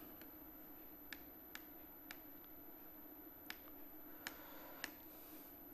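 Near silence: quiet room tone with several faint, irregularly spaced clicks.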